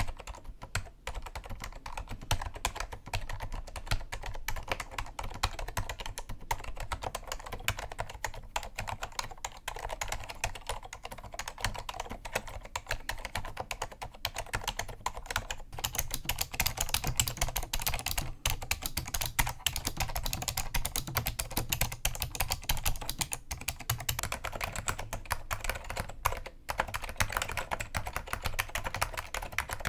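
Continuous typing on an Apple Extended Keyboard II with Alps SKCM Cream Damped switches, a rapid run of key presses and returns. From about halfway through the keystrokes sound sharper and brighter.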